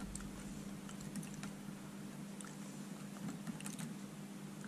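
Faint, scattered small clicks and ticks of metal tweezers picking at tiny model-fence parts, over a steady low hum.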